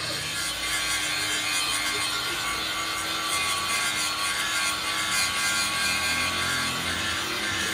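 Electric angle grinder with an abrasive disc grinding steel gear teeth on a helical pinion shaft, running steadily under load.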